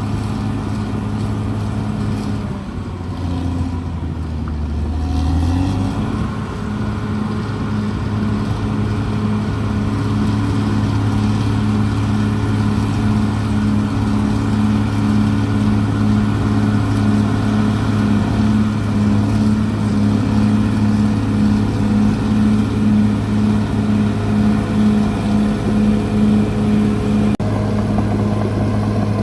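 CAT D6R XL bulldozer's diesel engine running under load. About three seconds in, the engine note drops, lugging, and picks back up a few seconds later. In the second half, the note pulses about twice a second.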